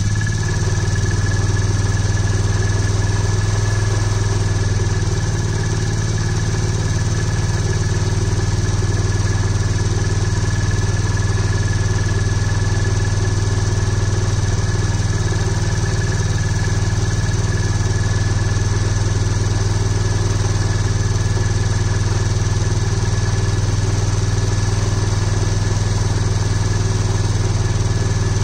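Cold carbureted ATV engine running steadily at a held, slightly raised RPM while it warms up.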